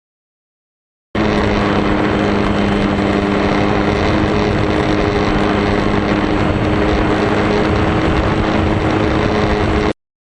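Steady drone of an RC foam airplane's motor and propeller with rushing wind, as picked up by a camera riding on the plane; it holds an even pitch, cutting in suddenly about a second in and cutting off suddenly near the end.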